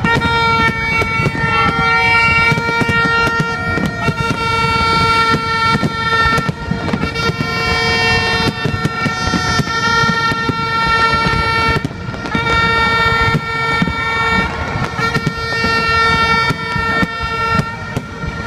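A horn blowing one long, steady note over the crackle and bangs of an aerial fireworks display. The note breaks off briefly about two-thirds of the way through, then resumes.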